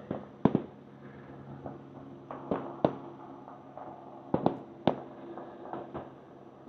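Aerial firework shells bursting: about six sharp bangs in irregular succession, the loudest about half a second in, with a pair near the middle and a quick cluster of three toward the end, over a steady low hum.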